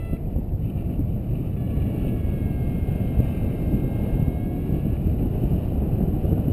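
Wind buffeting the microphone of a harness-mounted camera in paraglider flight: a steady, heavy, low rumble of rushing air.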